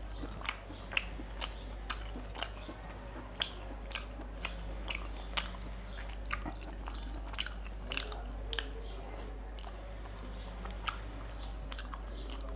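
Close-miked eating sounds of rice and mutton liver curry eaten by hand: irregular wet clicks and smacks of chewing, about one or two a second, over a steady low hum.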